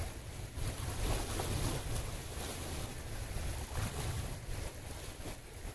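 Wind buffeting the microphone over the steady rush of a shallow stream flowing past.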